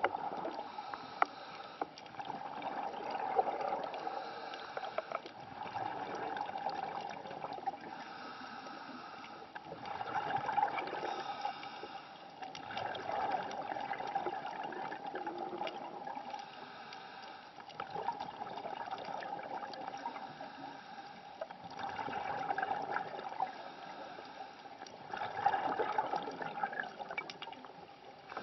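Underwater bubbling and gurgling from a scuba diver's breathing: regulator breaths and bursts of exhaled bubbles swell every three to four seconds.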